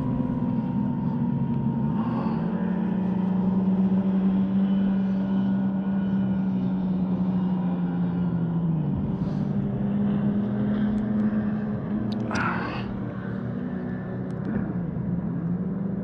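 An engine drones steadily in the distance. Its pitch drops slightly about two seconds in, then dips and recovers about nine seconds in. A brief sharp knock or rustle comes about twelve seconds in.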